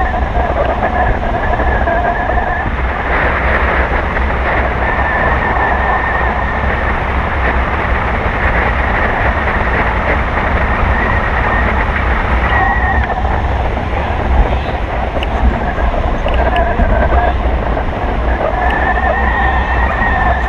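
Airflow buffeting the microphone of a camera mounted on a hang glider's wing in flight: a loud, steady rushing rumble. A faint wavering whistle sits on top, dropping out for several seconds from about three seconds in and returning near the end.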